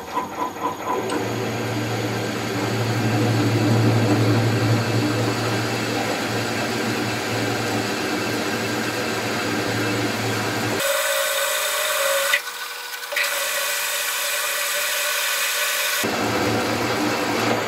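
Metal lathe running while a three-flute core drill in the tailstock cuts steadily into an aluminium casting, opening up a pilot hole: a smooth, even cutting sound over the lathe's hum, with no chatter. For about five seconds in the second half, the low hum drops away and only a higher tone and hiss remain.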